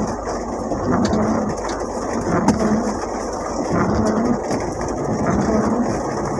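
Rain falling on the roof and windshield of a Mitsubishi L300 van, heard from inside the cab, with the van's engine running underneath as it is manoeuvred into a parking spot.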